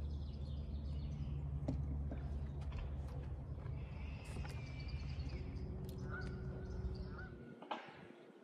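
Steady low hum of a bass boat's bow-mounted electric trolling motor, stopping about a second before the end. Birds chirp a couple of times near the end, with a few light clicks.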